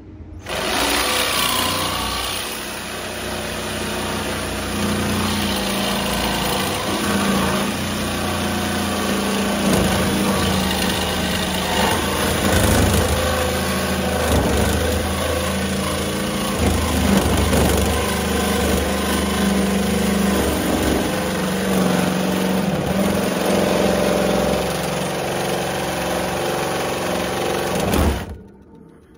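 Metabo HPT cordless jigsaw running and sawing through metal wire shelving, a loud steady motor-and-blade sound that cuts off suddenly near the end.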